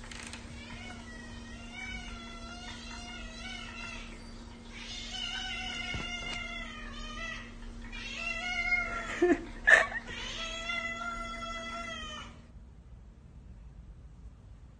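Cat meowing over and over, a long run of short calls over a steady low hum, with two sharp knocks about nine to ten seconds in. The calls and hum stop abruptly about twelve seconds in.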